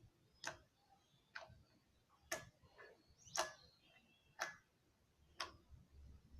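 Steady ticking in a quiet room: a sharp click about once a second, six in all.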